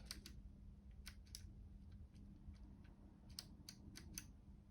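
Commodore 64 keyboard keys being pressed: about nine faint clicks in small groups.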